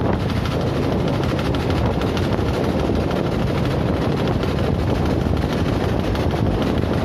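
Boat engine running steadily while the boat moves along the river.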